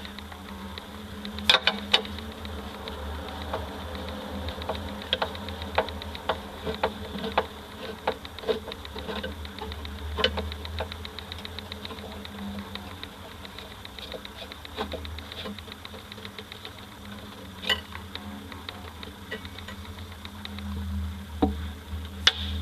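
Steady high-pitched insect buzzing made of very fast fine ticking, over a low steady hum, with scattered sharp clicks and knocks, the loudest about a second and a half in, near the middle, and just before the end.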